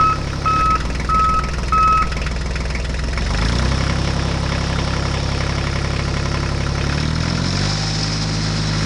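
Vehicle engine running, with a reversing alarm beeping about every 0.6 s for the first two seconds. The engine then rises in pitch about three and a half seconds in, and again near the end.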